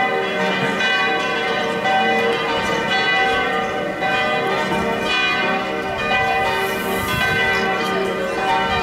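Church bells ringing, several bells sounding together in a continuous peal.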